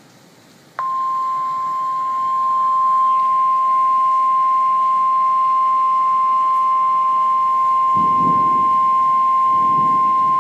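NOAA Weather Radio warning alarm tone (1050 Hz): one steady, unbroken tone that comes on abruptly just under a second in and holds at an even level. It is the alert that signals a warning is about to be broadcast, here a severe thunderstorm warning.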